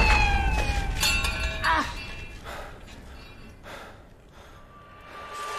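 Fight-scene soundtrack: several slowly falling tones with a few sharp hits in the first two seconds, fading to quiet by about halfway through.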